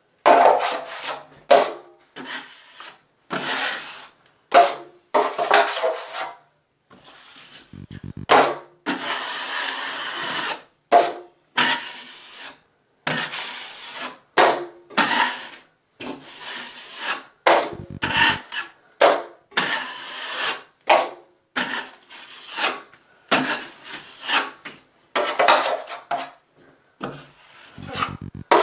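Drywall knife scraping and spreading joint compound over a wall patch in repeated strokes, roughly one a second and uneven, with short pauses and a few dull knocks.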